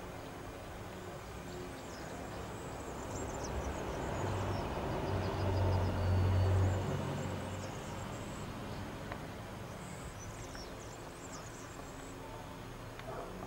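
Low engine rumble of a passing vehicle, swelling to a peak about six seconds in and then fading away, with faint high chirps above it.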